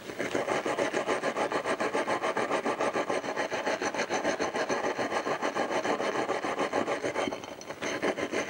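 Hand wire brush scrubbing the metal diaphragm top cap of a motorcycle carburettor clean, in rapid, even back-and-forth strokes, with a brief pause about seven seconds in.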